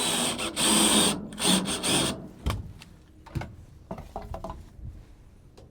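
Power drill driving a screw into a wooden 2x3 to mount a fence charger, in two runs of about a second each with a short break between. Then a few light clicks and knocks as the unit is handled.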